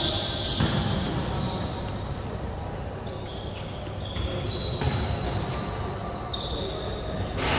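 Basketball game sounds on an indoor court in a large sports hall: the ball bouncing and players moving over a steady background of hall noise.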